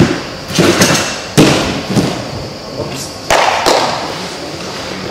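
A series of about six thumps from a gymnast's feet striking a sprung fast-track tumbling track during forward tumbling take-offs and landings, the sharpest about a second and a half in.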